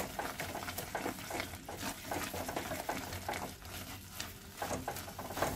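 Red silicone spatula stirring and scraping a thick masala with green peas around a non-stick kadhai in short, irregular strokes, as the peas are sautéed in the masala.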